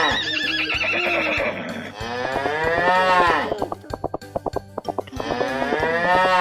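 Cow mooing: three long moos, each rising then falling in pitch, with a quavering horse whinny after the first and a run of quick clicks before the last. A low steady beat runs underneath.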